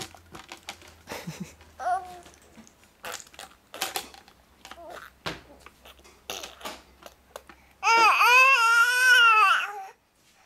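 Baby's light clicks, taps and soft vocal bits, then near the end a loud, high-pitched squealing vocalization lasting about two seconds, wavering in pitch, that ends abruptly.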